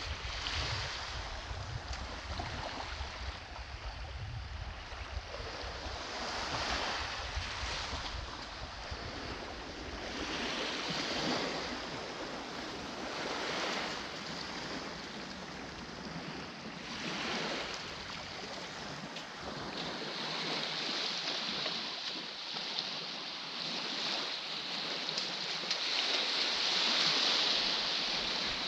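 Small sea waves breaking and washing up a sandy shore, swelling and falling back every few seconds. Wind rumbles on the microphone for the first third or so, then dies away.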